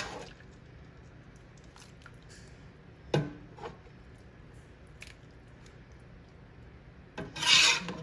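A metal ladle spooning and spreading ground-beef enchilada sauce in a crock pot. The ladle knocks sharply on the crock about three seconds in and taps lightly just after, and near the end there is a loud, wet, scraping rasp as sauce is scraped off the ladle.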